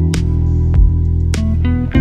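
Instrumental background music led by guitar, with a steady beat.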